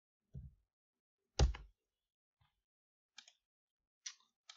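Computer keyboard keystrokes and mouse clicks, a few isolated ones: a soft knock, a louder thump about a second and a half in, then three light clicks near the end.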